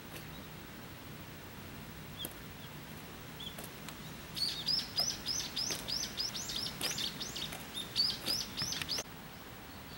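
A small bird singing: a couple of faint high chirps, then about four seconds in a quick run of short high chirps, about four or five a second, that cuts off suddenly near the end.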